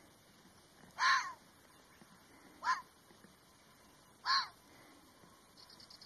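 Red fox barking three times: short, sharp barks roughly a second and a half apart, the middle one briefest.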